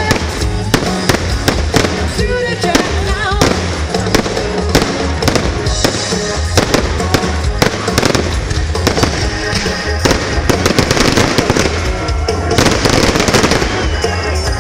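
Fireworks crackling and banging in quick, irregular succession over a live band playing.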